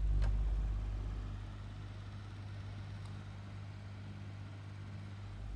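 1982 Micromark 12-inch desk fan running on low: a steady motor hum with scratching noises from its bad bearings. A deep rumble is loudest at the start and eases off within about a second.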